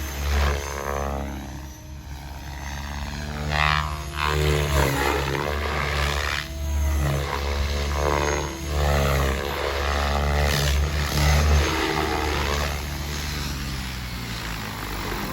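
KDS A5 electric 3D RC helicopter in flight: its brushless motor and 560 mm rotor blades whine and chop, the pitch sweeping up and down repeatedly as the rotor loads and unloads through aerobatic manoeuvres. The sound eases off in the last few seconds.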